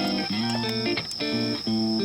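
Background music: plucked guitar notes over a bass line with a steady beat.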